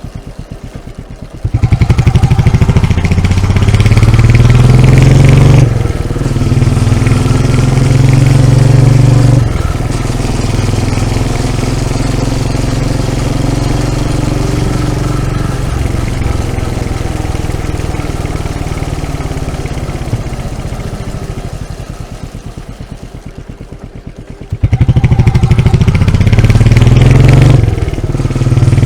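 Royal Enfield single-cylinder motorcycle engine running hard: it comes in loud about a second and a half in, its pitch rising and dropping back twice as it goes through the gears. It then slowly fades, and is loud again suddenly near the end.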